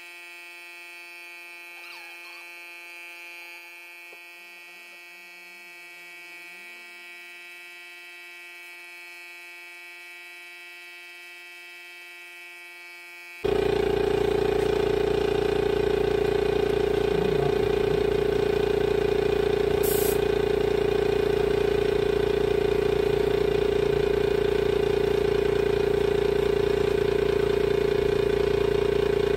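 A faint steady electric hum with a high whine, then about halfway through an air compressor cuts in suddenly and runs steadily and loudly, with a strong low drone.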